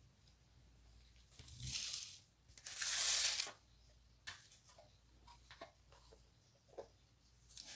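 Two short rustling noises, about a second and a half and three seconds in, the second louder and longer, followed by scattered light clicks and taps of kitchen handling.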